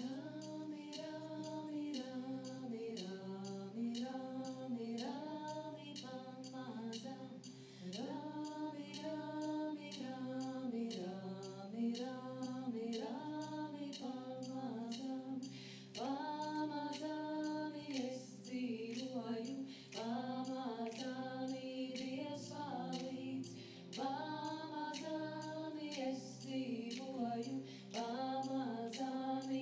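Female voices singing a Latvian folk song in phrases a few seconds long over a steady held drone, with faint regular percussive ticks.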